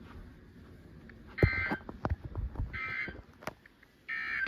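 An electronic ringer sounding short buzzy rings, three of them spaced about a second and a half apart, with faint clicks in between.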